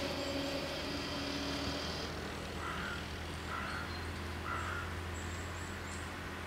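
Level-crossing barrier drive whining steadily as the half-barrier arms lower, stopping about two seconds in when the booms come to rest. Then three short calls about a second apart, over a low steady hum.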